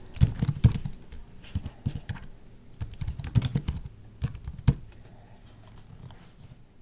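Key presses on a Microsoft Wedge Bluetooth keyboard: an irregular run of quick typing clicks, spelling out a short search term and stopping about two-thirds of the way through.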